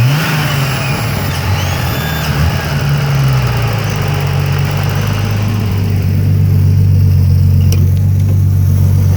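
BMW E30's turbocharged M30 straight-six blipped and then settling to a steady idle, with high-pitched whistles that slide down in pitch during the first two seconds as the revs fall; the whistle is what the owner takes for a vacuum leak.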